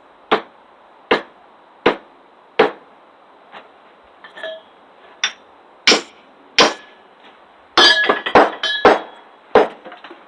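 Steel hammer striking the back of a hatchet to drive it through firewood and split it. There are four evenly spaced blows in the first three seconds, a few more blows after that, then a quick flurry of knocks and clinks near the end.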